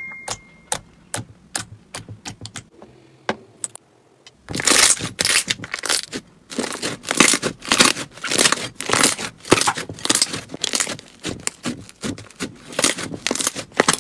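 Pink slime worked by hand: at first scattered sharp pops as fingers press into glossy slime, then, about four seconds in, a dense run of crackling and tearing as a puffy slime is stretched and squeezed.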